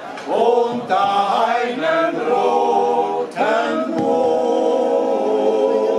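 Small men's choir singing together in harmony, with long held notes and a brief break about four seconds in.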